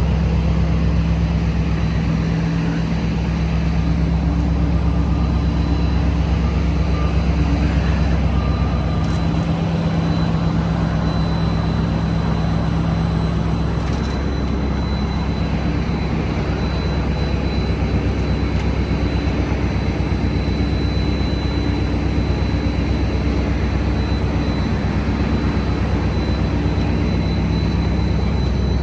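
A trawler's diesel engine and machinery running with a steady low drone and a faint high whine.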